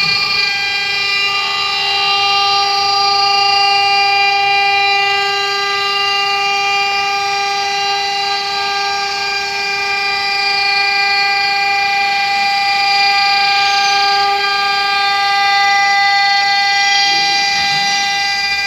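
CNC glass milling machine's spindle running while its tool cuts the glass under water coolant: a loud, steady whine made of several high tones, with a light hiss beneath.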